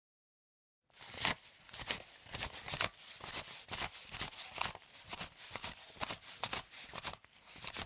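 Paper banknotes being counted by hand: a crisp flick and rustle for each bill, about two a second, starting about a second in after dead silence.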